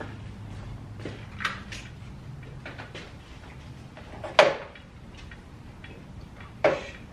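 Scattered knocks and clanks from hands and tools working in a car's engine bay, with the engine and transmission hanging on a shop crane's chain, the two loudest about four and a half and six and a half seconds in.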